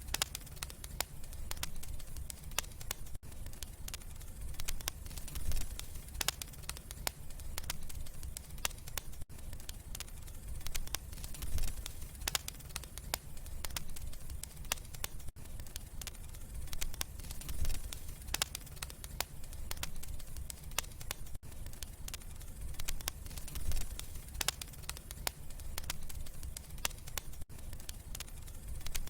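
Wood fire crackling in a fireplace: frequent sharp pops and snaps over a low, steady rumble from the flames.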